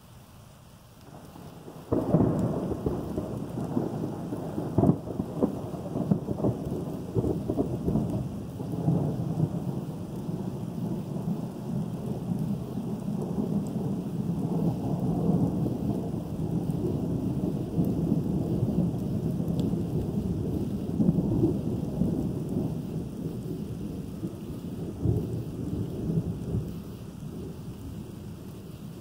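A thunderclap breaks suddenly about two seconds in, with sharp cracks over the next several seconds, then a long low rumble of thunder that goes on for over twenty seconds and dies away near the end. Light rain falls underneath.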